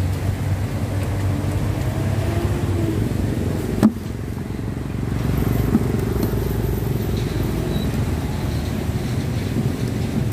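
Steady low outdoor rumble with a single sharp click about four seconds in.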